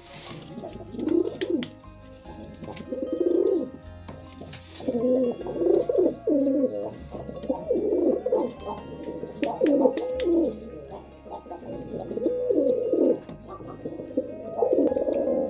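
Domestic pigeons courtship cooing: a run of coos repeated one after another, each about a second long, with a few sharp clicks between them.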